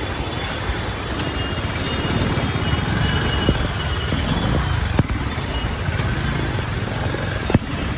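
Motorized two-wheeler riding through city traffic: steady engine and road rumble, with a sharp click about five seconds in and another near the end.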